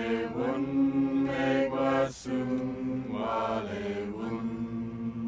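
A small group of men and women singing a slow chant together in long held notes, with a short breath break about two seconds in.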